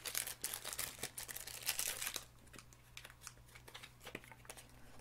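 Plastic packaging crinkling and rustling as it is handled, for about two seconds, then a few faint light taps.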